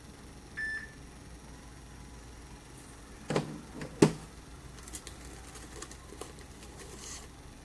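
Handling noise on a phone or table: two dull knocks a little under a second apart, the second louder, followed by light scattered taps and clicks. A short single beep sounds about half a second in.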